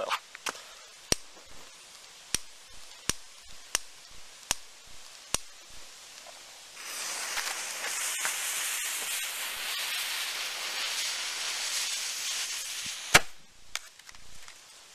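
Homemade tinfoil-wrapped gunpowder charge: a string of sharp snaps as the lit fuse burns down. About seven seconds in, the gunpowder catches and burns with a loud, steady hiss for about six seconds, ending in one sharp pop.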